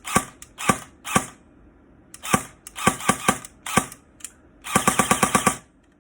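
Stock Specna Arms E07 airsoft electric gun firing: single shots a fraction of a second apart, then a short rapid burst of about ten shots about five seconds in.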